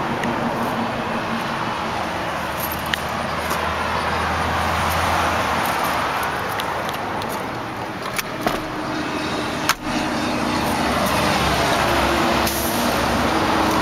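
Highway traffic: a steady rush of passing vehicles, with one sharp knock about ten seconds in.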